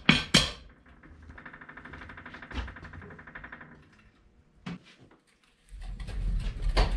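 A VW Beetle being pushed on wheel dollies over a concrete garage floor. Sharp knocks at the start give way to a fast rattle of the dollies' plastic caster wheels. A low rumble sets in about six seconds in.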